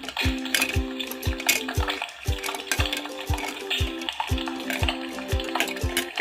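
Background music with a steady beat over a crackling, sizzling frying sound from toy kitchen cooking play.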